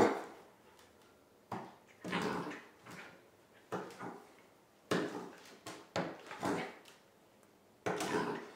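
Pembroke Welsh Corgi puppy playing rough on a hardwood floor: a string of short dog noises and thumps and scrabbles of its paws on the wood, coming at irregular intervals.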